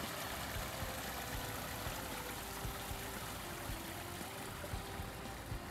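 Steady noise of running water, even and unbroken.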